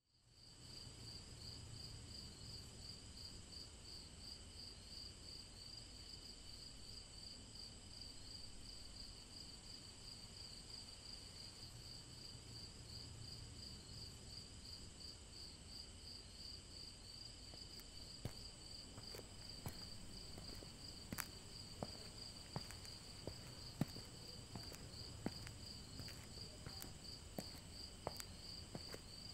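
Crickets chirring in a steady, rapidly pulsing trill that fades in at the start. From about two-thirds of the way through, scattered sharp clicks join in.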